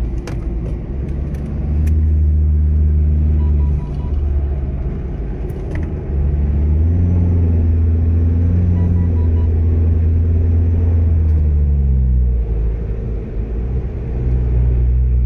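Car engine and road noise heard from inside the cabin while driving: a low drone that grows louder and shifts in pitch about two seconds in and again about six seconds in, then dips briefly near the twelve-second mark.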